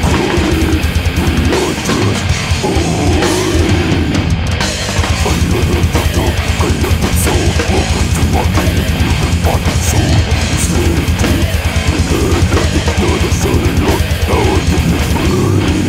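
Heavy metal recording: distorted electric guitars over a drum kit with a fast, steady stream of bass drum beats.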